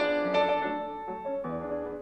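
Background piano music, a run of separate notes and chords.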